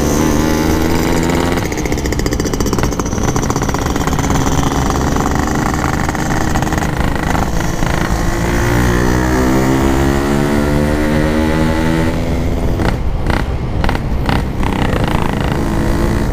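Yamaha RX-King single-cylinder two-stroke motorcycle engine running under way through an aftermarket PK3 packing-power exhaust. Its note shifts with the throttle and climbs steadily about halfway through before dropping back.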